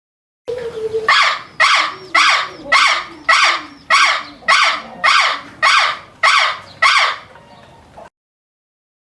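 An animal calling the same loud call about eleven times in a steady series, a little under two calls a second, starting and stopping abruptly.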